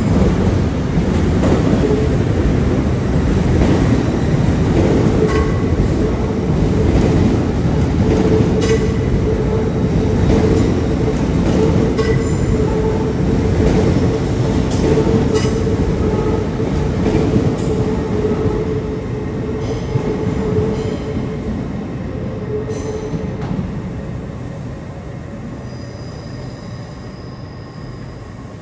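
Class 803 electric train passing along the platform under the station's arched roof: a loud rumble of wheels on rail with a steady high whine and scattered clicks. It fades away over the last several seconds as the train pulls away.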